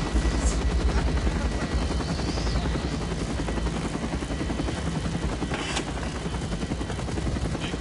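UH-1 Huey helicopter in flight, heard from inside the troop cabin: a steady, rapid beat of the rotor blades over the engine.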